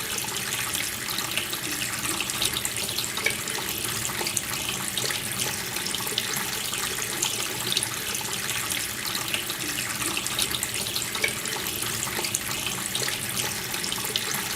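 Water tap running steadily, a constant stream splashing into a sink.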